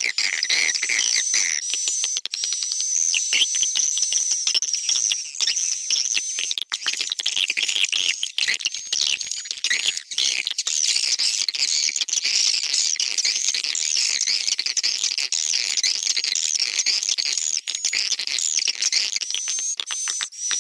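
Recorded edible-nest swiftlet calls played back as a swiftlet-house lure sound, the 'tarik' attract call mixed with the 'inap' roosting call: dense, unbroken high twittering and chirping with many quick clicks among the calls.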